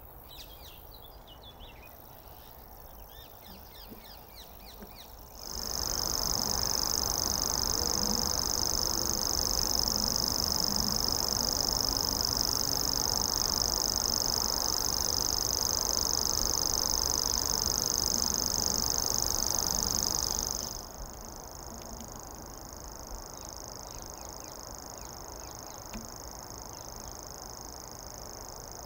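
Small birds chirping. From about five seconds in, a loud steady noise with a continuous high-pitched buzz starts suddenly and cuts off about fifteen seconds later. The high buzz carries on more quietly after it.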